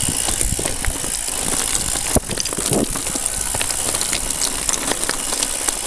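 Mountain bike rolling down a loose, rocky trail: tyres crunching over stones and the bike rattling, over a steady hiss, with one sharp knock about two seconds in.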